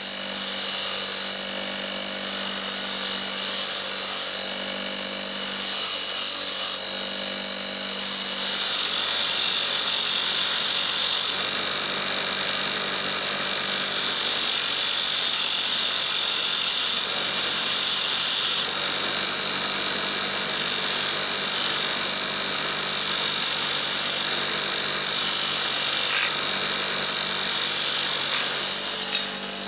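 Power tool running steadily while scouring rust and corrosion off steel bolts: a constant motor hum under a harsh abrasive hiss that gets stronger about eight seconds in.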